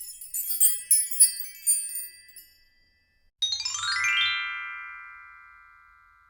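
Twinkling chime sound effect for about two and a half seconds. After a short gap comes a fast upward run of bell-like tones that rings out and slowly fades.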